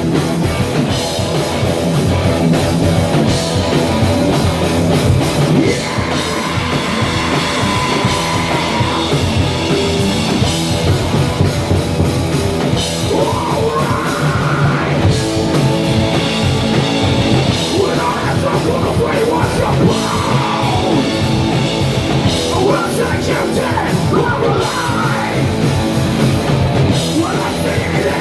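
Live rock band playing loud, with electric guitars, bass guitar and a drum kit keeping a steady beat. About halfway through, a vocalist comes in, singing and shouting into the microphone.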